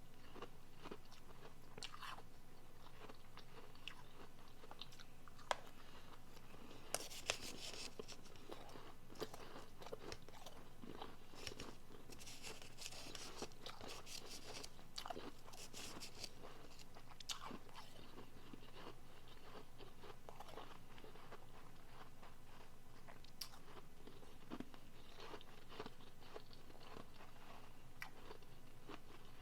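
Close-up biting and chewing of soft refrozen powdery blender ice: irregular crunches, with a few sharp louder bites about five to seven seconds in and a busier run of crunching around the middle.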